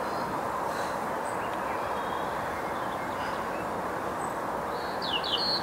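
Steady background hiss, with a few short high bird chirps near the end.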